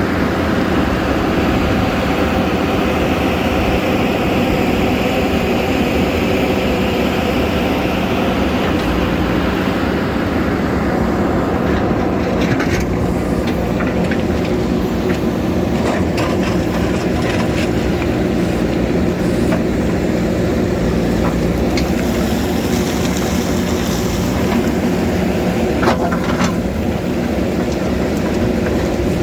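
JCB backhoe loader's diesel engine running steadily under work, with scattered sharp knocks in the second half.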